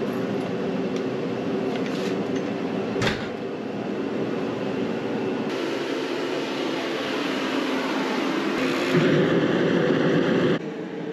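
Portable forced-air propane heater running with a steady fan hum, a single knock about three seconds in. About five and a half seconds in, a rushing burner noise joins as the heater lights. It grows louder near the end and then cuts off suddenly.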